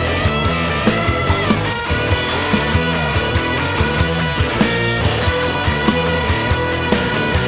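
Rock band playing an instrumental passage. A sustained lead line, most likely electric guitar, holds and bends notes over a bass line and steady drum hits.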